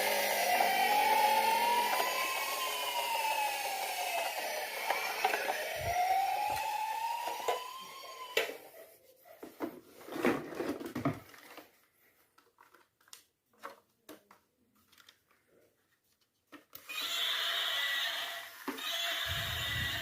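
Battery-powered toy emergency vehicle's electronic siren wailing, its pitch rising and falling slowly about twice, then cutting out about eight seconds in. Scattered clicks and knocks of plastic toy handling follow. Another steady electronic toy sound effect starts near the end.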